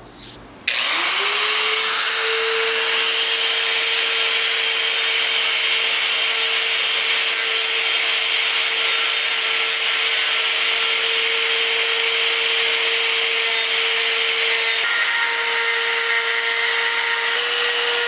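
Chicago Electric long-shaft electric die grinder switched on about a second in, winding up quickly to a steady high whine as its rotary bit grinds over an aluminium triple clamp. The pitch shifts slightly a couple of times near the end.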